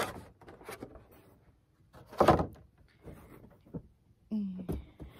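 Black molded plastic packaging insert of a Starlink dish being handled and set down: a few knocks and scrapes, the loudest about two seconds in.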